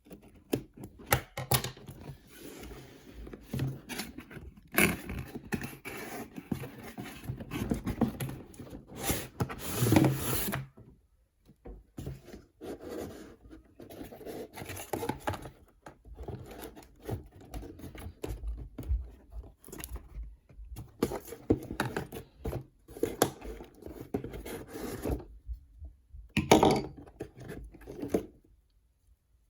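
Box cutter scraping and slicing through packaging, with rubbing and tearing as the toy box is handled and opened, in irregular bursts with short pauses.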